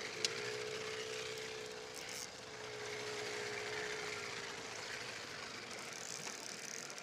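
Small outboard motor on a jon boat running steadily as the boat moves out from the rocks. Its hum fades out about four and a half seconds in. A steady hiss of wind and choppy water runs under it.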